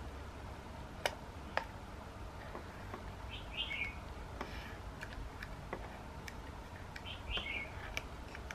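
Light clicks and rustling as a 120 film roll is pressed into place in the film chamber of an Alpen-M medium-format camera, two sharp clicks about a second in. A bird chirps twice, short falling chirps in the middle and near the end.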